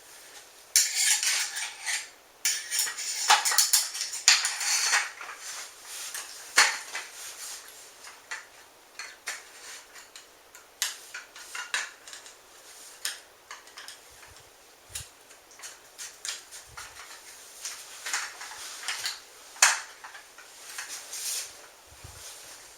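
Small steel parts of a Mossberg 500 pump-action shotgun clicking, clinking and scraping against the receiver as the gun is reassembled by hand. A dense run of rattles fills the first five seconds, followed by scattered single clicks.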